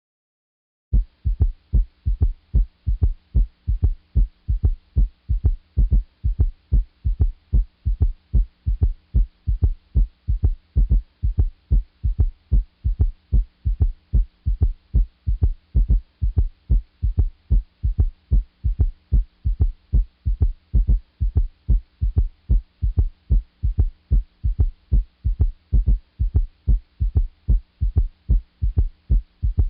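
Recorded heart sounds as heard through a stethoscope: a steady run of low, evenly spaced lub-dub beats that starts about a second in, after a short gap. A faint steady hum runs underneath.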